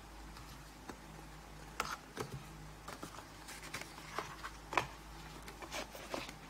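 Rigid cardboard gift box being handled by hand, its lid lifted and moved, giving a string of light irregular knocks and scrapes, the sharpest about three-quarters of the way through, over a steady low hum.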